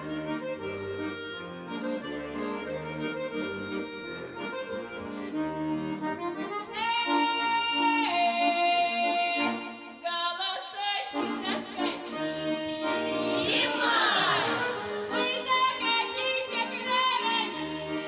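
Accordion playing a folk tune. About seven seconds in, voices of a children's folk ensemble join in, singing long held notes with vibrato.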